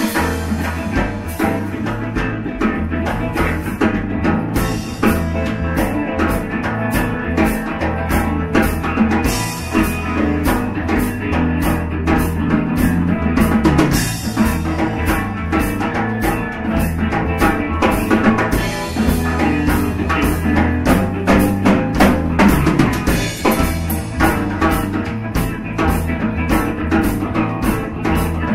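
A live rock-blues band playing: electric guitar, bass guitar and a drum kit, with the drums keeping a steady beat over a bass line.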